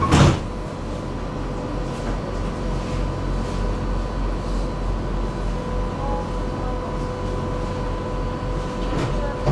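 Inside a stationary tram: its onboard equipment gives a steady hum with a low drone and a faint steady whine. A loud thump comes just after the start, and a smaller knock near the end.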